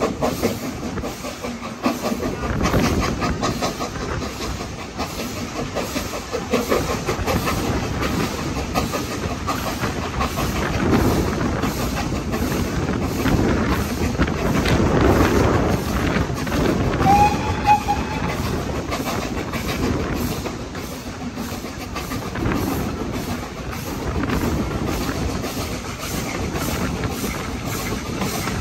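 BR Standard 4MT 4-6-0 steam locomotive 75078 working hard up a steep gradient, heard from a carriage window: a rapid, regular exhaust beat mixed with the train's wheels clattering over the rail joints. A brief high note sounds about two-thirds of the way through.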